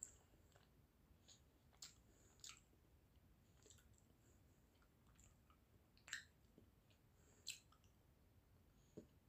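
Near silence broken by faint wet mouth clicks of someone chewing a jellybean: half a dozen short, sharp clicks spread unevenly over the quiet.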